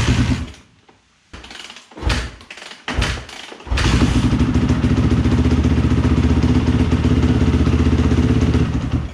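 2001 Yamaha YZ426F single-cylinder four-stroke dirt bike engine being kick-started: three kicks give sharp thumps without catching, then it fires a little under four seconds in. It runs steadily for about five seconds with the hot-start lever pulled, then cuts off near the end.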